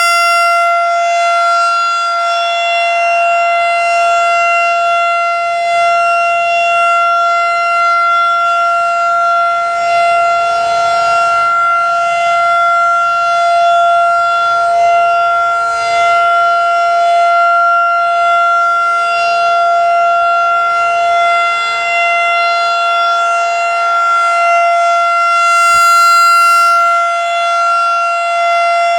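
Federal Signal 2nd-generation 2001-SRN outdoor warning siren sounding its steady alert tone at full speed. It holds one pitch throughout, and the loudness swells and fades gently every few seconds as the rotating horn sweeps around.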